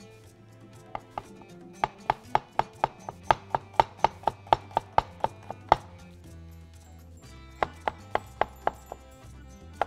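Knife slicing onions into julienne strips: quick, even strokes about four a second in two runs, with a short pause between them.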